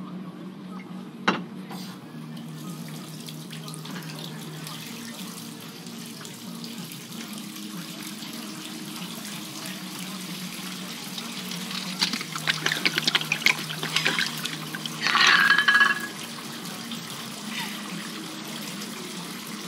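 Tap water running steadily as a bath fills. About two-thirds of the way through, a woman's shaky breaths and a short, high crying whimper rise over it.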